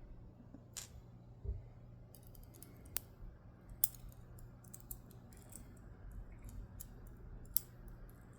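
Irregular light metallic clicks and ticks from small tools and parts working a Dom Diamant euro-profile lock cylinder, two of them sharper than the rest, over a faint steady low hum.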